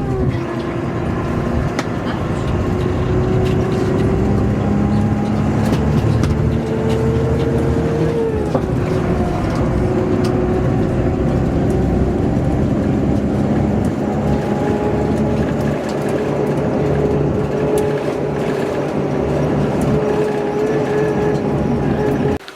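Motor vehicle engine running steadily with road noise, its engine note shifting in pitch a few times. It cuts off suddenly near the end.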